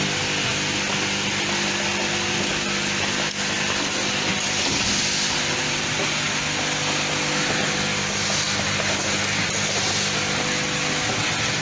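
Automatic plastic clothespin assembling machine running: its vibratory bowl feeders hum steadily on several low tones under a constant hiss.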